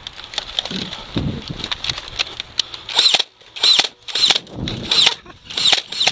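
Motorized Nerf Stampede blaster, modified with an upgraded spring and 14 V Trustfire batteries, firing darts: a run of short motor whirs with a snap each, about two a second, starting about three seconds in after some clicking and handling.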